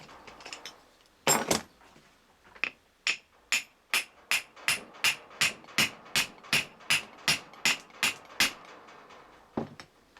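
Hammer striking a driveshaft universal joint while it is being assembled. There are two hard blows, then a steady run of about sixteen sharp strikes at a little over two a second, and one last blow near the end.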